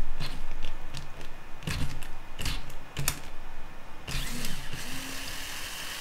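A few knocks of a screwdriver bit against a metal motorcycle silencer's end cap. Then, about four seconds in, a small cordless electric screwdriver starts whirring steadily as it backs out the dB killer's retaining screw.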